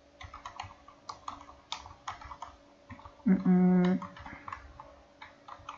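Computer keyboard typing: a run of uneven key clicks as a command is typed. A little past halfway there is a short, steady hummed "mm" from a person's voice.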